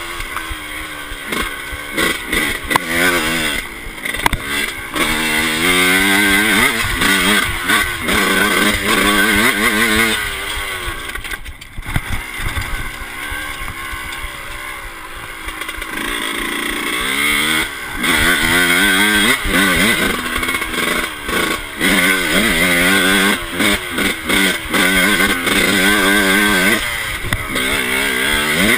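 Yamaha YZ125's single-cylinder two-stroke engine revving hard while being ridden, its pitch climbing and dropping back over and over as the throttle is worked through the gears. Around the middle it eases off to a lower, quieter note for a few seconds before revving up again. It is heard close up from a handlebar-mounted camera.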